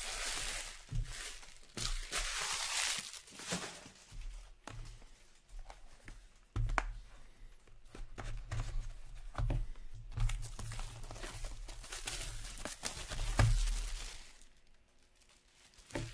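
Plastic shrink-wrap on a hockey card box being torn and crinkled, a dense crackling over the first few seconds, followed by scattered clicks and low knocks as the cardboard box is handled on the table.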